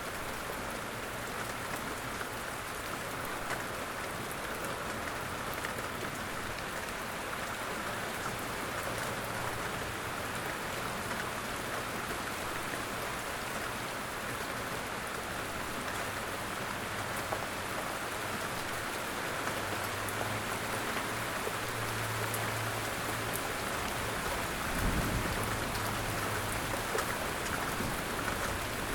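Light rain falling steadily in woodland, an even patter of drops. A brief low rumble about 25 seconds in.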